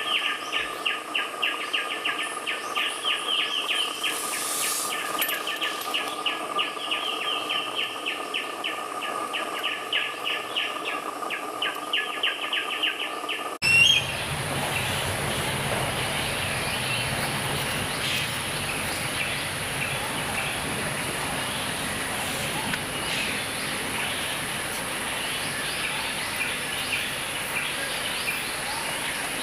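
Birds chirping: a fast run of short repeated chirps, about four a second, over a steady whistle-like tone. After an abrupt cut about halfway through, a steady high hiss with scattered fainter bird calls.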